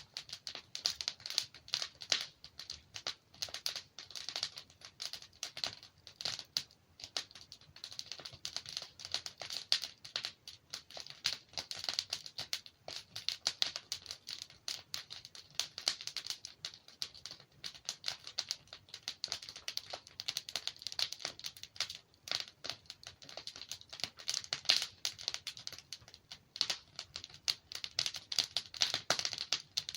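Wood fire crackling and popping steadily as logs burn, a dense run of small irregular snaps.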